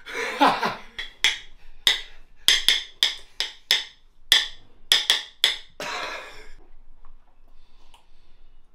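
Metal fork clicking and scraping against a ceramic bowl as eggs are scooped up: a dozen or so sharp clinks over about five seconds, then it goes quiet.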